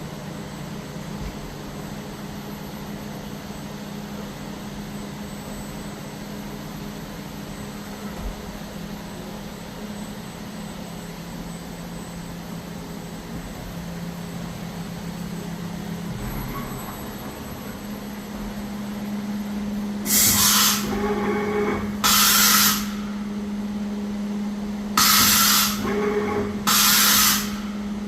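Fanuc Robodrill α-D21LiA tapping center running with a steady hum whose pitch shifts a little over halfway through. Near the end come four loud hissing blasts of compressed air, each about a second long.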